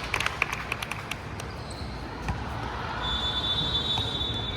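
Basketball play on an indoor court: a quick run of sharp taps and squeaks from the ball and sneakers in the first second, then a thin high squeak held for about a second near the end.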